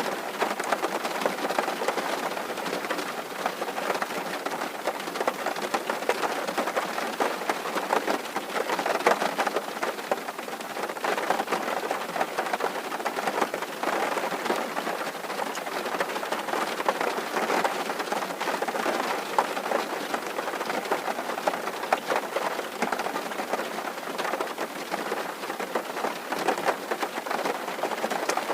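Steady rain drumming on a tin roof, a dense patter of many small drop impacts.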